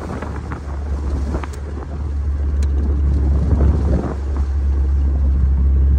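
Classic Motor Carriages Gazelle replica car driving along a road: a steady low rumble of engine and road noise mixed with wind buffeting on the microphone, growing a little louder over the second half.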